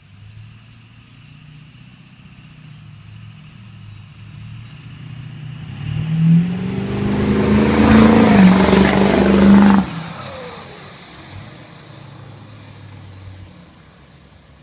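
A 2000 Ford F-250's 7.3 L V8 turbo-diesel with a 38r turbo and 5-inch straight pipe, building under throttle for several seconds to a loud, held high-rev peak with a high whistle rising and falling over it. The throttle is let off suddenly about ten seconds in, and the sound drops and fades.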